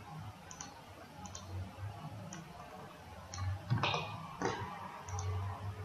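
Computer mouse clicking: a string of light clicks, several in quick pairs, with two louder knocks a little before and after four seconds, over a faint low hum.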